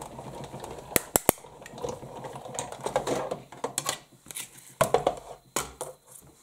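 Big Shot die-cutting machine being hand-cranked, the cutting-plate sandwich with a thin metal die rolling through its rollers with a steady grinding rumble and a few sharp clicks about a second in. Near the end the plastic cutting plates clatter as they are pulled out and laid back down.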